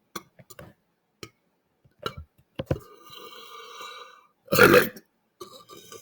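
A man's loud belch, about half a second long, some four and a half seconds in, preceded by small mouth clicks and a faint steady sound.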